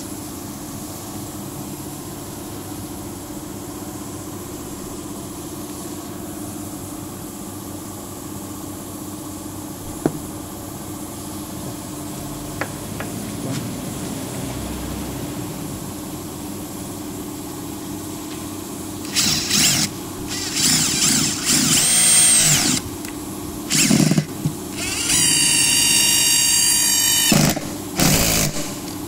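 Makita TD002G 40V XGT brushless impact driver driving screws into a wooden board. It runs in several short trigger bursts and one longer run of about two seconds, its motor whining and cutting off sharply each time. For roughly the first two-thirds only a steady low background hum is heard.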